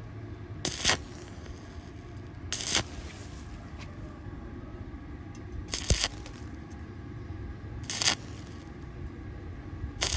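Stick-welding electrode striking brief arcs on a thin-walled round steel pipe: four or five short crackling bursts about two seconds apart, the arc broken between them. This stop-start stitch welding keeps the thin pipe wall from burning through.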